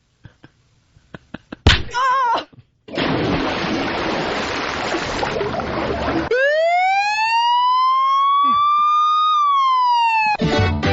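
A run of radio sound-effect drops played in quick succession. A few clicks and a brief warbling tone are followed by about three seconds of loud rushing noise. Then a siren-like tone rises steadily for about three seconds, sinks slightly and cuts off.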